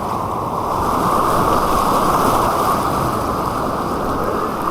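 Rushing white water on an artificial white-water course, a steady loud rush with little treble.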